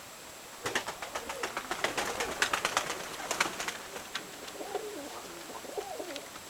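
Nikolaev pigeons cooing, a low rising-and-falling coo repeated several times. Near the start a dense run of sharp clicks and claps lasts about three seconds and is the loudest part.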